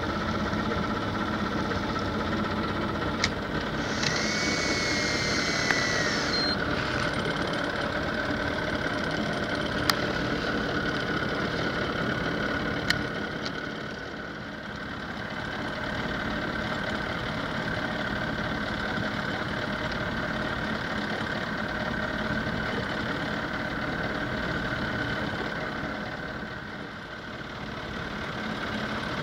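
A motor running steadily with a constant hum and whine. There are a few sharp clicks, and a brief higher tone about four seconds in.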